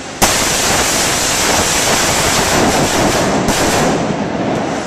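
Rapid overlapping gunfire from several AR-15-type carbines on the firing line. It starts suddenly just after the start and stops just before the end, the shots running together into one continuous loud din.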